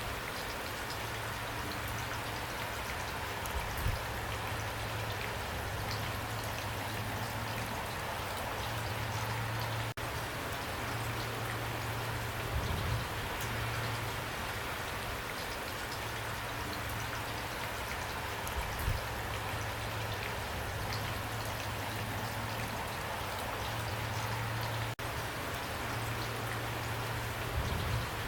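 Steady rain falling, an even hiss with the patter of drops, broken by a few louder low thuds.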